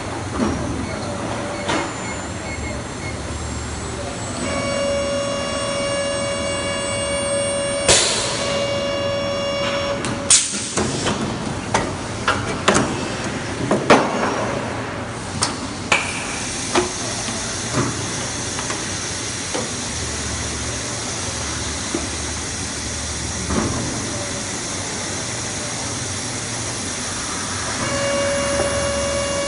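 Injection blow moulding machine running a two-cavity HDPE bottle cycle: a steady machine hum, with a pitched whine from about four seconds in and again near the end. A sharp rush of air about eight seconds in, then a series of clanks and knocks over the next several seconds as the moulds and indexing table move.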